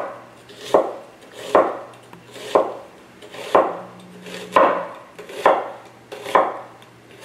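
Chef's knife slicing through an onion on a wooden cutting board, one stroke about every second, each ending in a sharp knock of the blade on the board.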